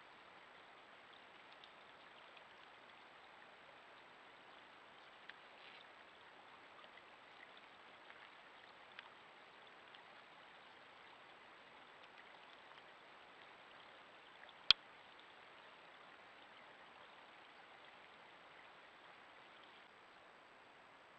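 Faint steady hiss from a trail camera's microphone, with a few faint ticks and one sharp click about fifteen seconds in.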